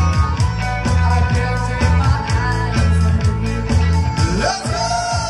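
Live dance-band music played over a PA: a steady kick drum about twice a second over a bass line, with one note rising and then held near the end.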